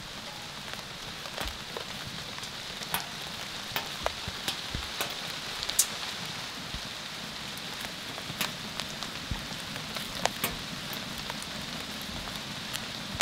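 Wood fire crackling in a Pomoly T-Brick Ultra titanium tent stove, with irregular sharp pops over a steady hiss of falling rain.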